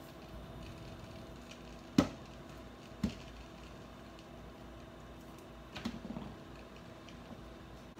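Kitchen handling sounds over a steady hum: two sharp knocks about a second apart, then a short soft clatter as banana pieces go into a plastic blender cup.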